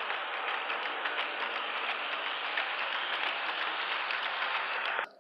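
HO scale coal hopper cars rolling past close by on model railway track: a steady clattering rumble of small metal wheels on the rails, with faint irregular ticks. It stops abruptly about five seconds in.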